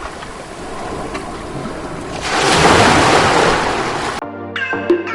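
Steady rushing noise of ocean surf, swelling louder for about a second midway. It stops abruptly near the end, where electronic music with a rising synth glide begins.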